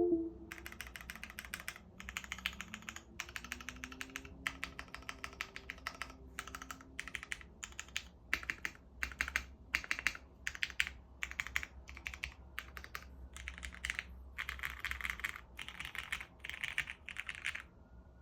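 Typing on a 65% mechanical keyboard with an aluminium plate, lubed Cherry MX Black Hyperglide linear switches and PBT keycaps: bursts of fast keystrokes with brief pauses between them.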